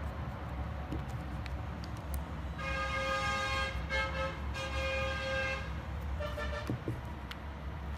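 A horn sounding: one long steady blast of about three seconds, broken briefly twice, then a short, slightly higher toot about a second later.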